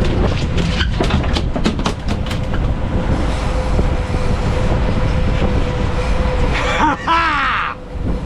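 Outboard engines of a center-console fishing boat running at low speed with a steady rumble and a constant hum. A run of sharp clicks comes in the first couple of seconds, and a short falling squeal about seven seconds in.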